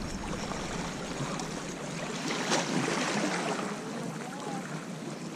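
Steady wash of seawater and breeze at the water's edge, with a few faint clicks.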